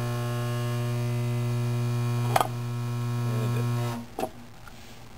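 Electromagnet coil on a transformer core humming steadily under current. About two and a half seconds in, a metal click as the coffee can is pulled against the core. The hum cuts off about four seconds in, followed by another small click.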